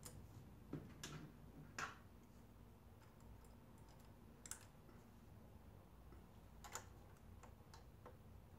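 Faint, scattered clicks and taps over near silence, about six of them at irregular intervals: a throttle position sensor and its small screws being fitted by hand to a throttle body.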